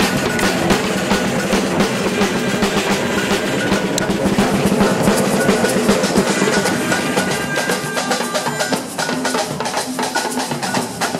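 A samba bateria playing a fast, dense samba groove: many drums struck with sticks together, with snare-type drums over deeper bass drums.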